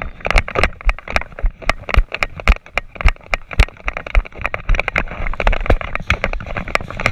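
Running footsteps with gear and camera rattle: a quick, uneven string of sharp thuds and clicks, about three a second, over a rustling of clothing and equipment.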